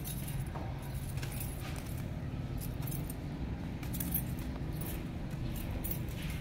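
A red plastic streamer on a cat teaser toy, shaken and snatched at, giving short crisp high rustling bursts every second or so over a low steady hum.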